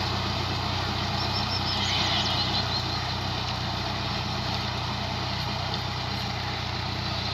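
Ghazi 480 tractor's diesel engine running steadily under load while it drives a heavy PTO-driven rotavator tilling the soil.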